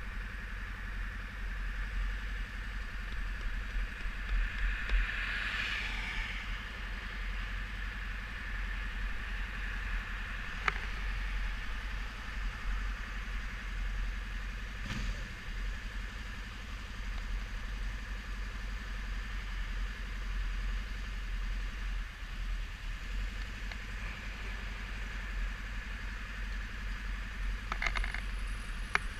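Motorcycle engine idling steadily while stopped at a light, with a swell of passing-traffic noise about five seconds in and a few sharp clicks.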